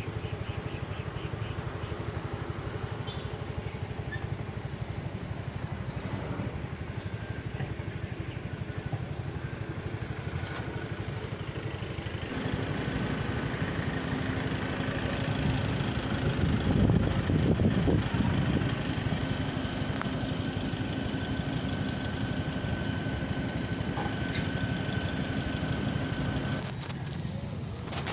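Motorcycle engine running steadily at low riding speed, with road and traffic noise; a steady hum joins about halfway through and drops away near the end.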